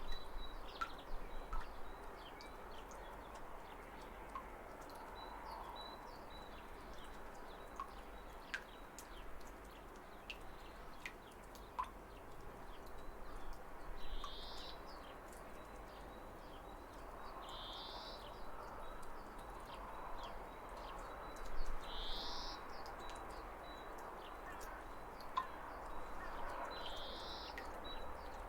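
Running water from a waterfall as a steady rush, with birds chirping over it; a short rising bird call repeats about every four seconds in the second half.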